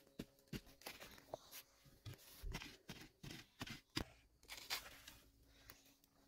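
Soft, irregular scrapes, crunches and snaps of soil and roots as a wild potato tuber is dug loose and pulled out of the ground by hand.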